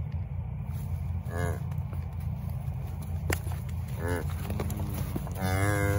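Cattle bawling: two short cries, then a longer bawl starting near the end, while a calf has its ear tagged. A single sharp click comes about three seconds in, over a steady low rumble.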